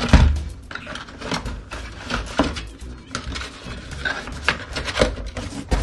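Handling noise from a CPU's retail packaging, a cardboard box and a clear plastic clamshell being picked up and handled: irregular clicks, knocks and rustles, loudest right at the start.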